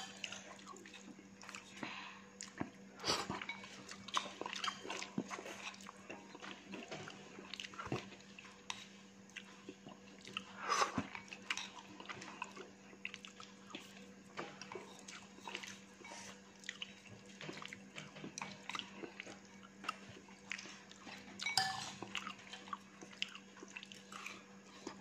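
Eating sounds close to the microphone: chewing and the small clicks of wooden chopsticks against a ceramic bowl of fried rice noodles, with a few louder clatters, over a steady low hum.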